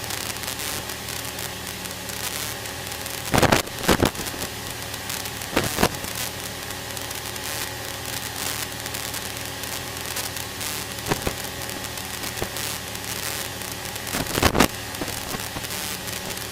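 Light aircraft cabin noise heard through the cockpit intercom: a steady hiss over a low engine hum, with a few short crackles about three to four seconds in, near six seconds, and again near the end.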